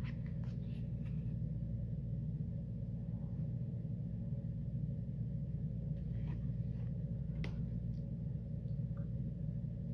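Steady low hum of room tone, with a few faint light clicks of a metal fork against a plastic microwave-meal tray, most of them in the second half.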